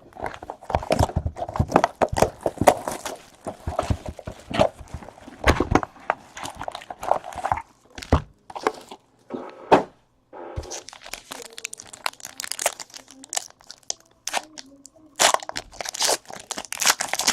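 Trading card pack wrappers crinkling and tearing open as cards are handled, in irregular crackles and rustles with a thicker burst of crinkling near the end.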